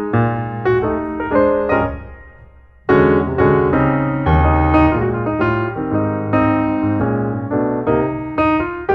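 Background piano music, a steady run of notes that dies away about two seconds in and comes back loudly about a second later.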